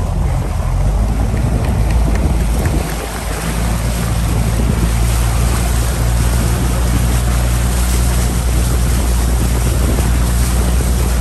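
Motorboat engine running at a steady speed, with wind buffeting the microphone.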